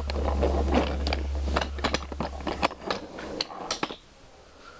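A wooden toy train engine pushed by hand along wooden track, its wheels rolling with a low rumble and a run of clicks and knocks. The rumble stops about three seconds in, leaving a few scattered clicks.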